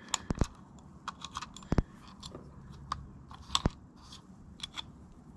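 Primers being pressed into .45 ACP brass cartridge cases during reloading: a series of irregular sharp clicks and small crunches.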